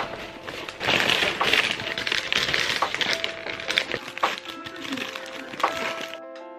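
Takeaway bags rustling, then a paper food wrapper crinkling and tearing as it is pulled open, a busy crackle that stops about six seconds in. Soft background music runs underneath.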